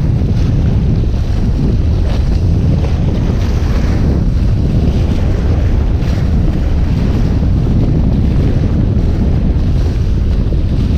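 Wind buffeting the microphone over the rush of water along the hull of a Volvo 65 racing yacht sailing fast. It is a loud, steady noise, heaviest in the low end.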